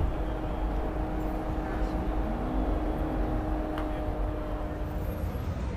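Busy city street ambience: a steady low hum of traffic with the murmur of passers-by's voices, and a held engine-like tone that stops about five seconds in.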